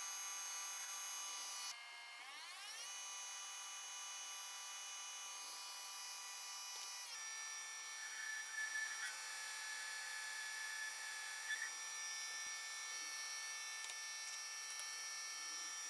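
Metal lathe running with a steady, faint electric motor whine. About two seconds in the whine dips and then rises in pitch over about a second as the spindle speeds up, and it steps to a new pitch again about seven seconds in. A few short louder sounds come around eight to nine seconds in and near eleven and a half.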